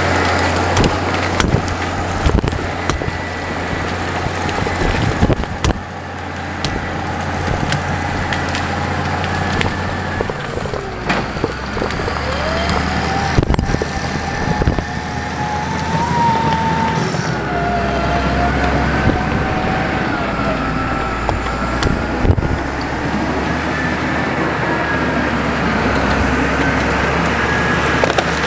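CAT D6 bulldozer's diesel engine running under load as the dozer pushes through jungle vegetation, its low note dropping about a third of the way in. A wavering whine sounds above it, and there are several sharp cracks of breaking wood.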